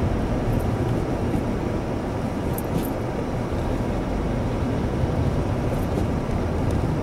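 Steady road and engine noise of a car in motion, heard from inside the cabin.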